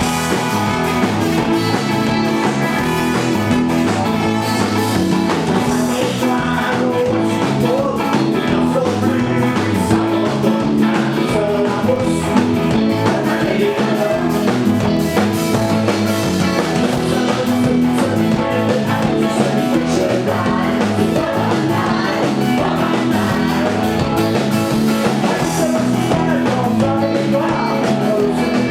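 Live ska-punk band playing a fast, loud song on drum kit, bass and electric guitar, with singing.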